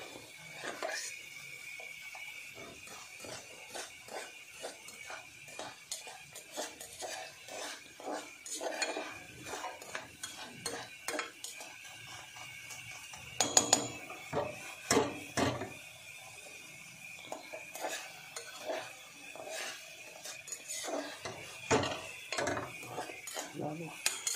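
A metal knife stirring and scraping kuchla (nux vomica) seed slices frying in ghee in an aluminium saucepan, with repeated clinks and scrapes against the pan and a louder clatter about halfway through. A steady faint hiss of the frying ghee runs underneath as the slices brown.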